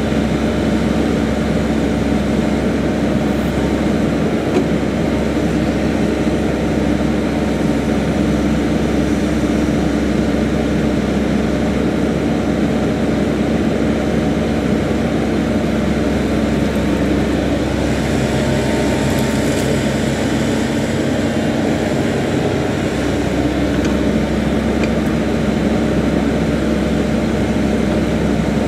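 Engine of a piece of heavy construction machinery running steadily at a constant pitch, with no clear knocks or changes in speed.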